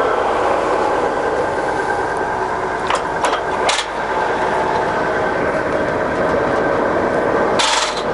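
Scott 6266 gap-bed centre lathe running steadily under power, its headstock gearing giving a steady mechanical whine. A few sharp clicks come around three to four seconds in, and a short rush of noise comes near the end.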